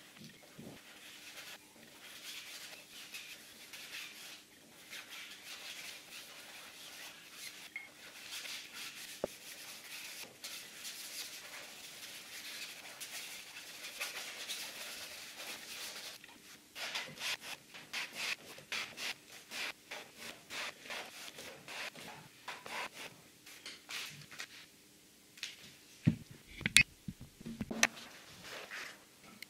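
A paintbrush scrubbing paint across a large canvas: a continuous scratchy brushing, then quicker separate back-and-forth strokes from about halfway. A few loud knocks near the end, over a faint steady hum.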